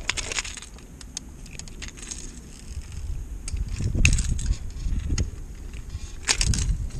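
Fishing pliers clicking and scraping against a crankbait's metal treble hooks while a hooked white bass is unhooked by hand, scattered sharp clicks over a low rumble, with a couple of louder rustling bursts about four seconds in and near the end.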